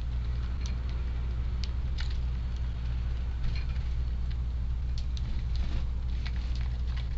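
Strong wind buffeting the microphone as a steady low rumble, with scattered light ticks and taps over it.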